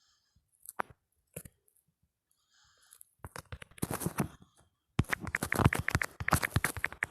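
Typing on a smartphone keyboard, with sharp key taps. A few taps come first, then a short pause, then fast, steady typing from about three seconds in that gets denser near the end.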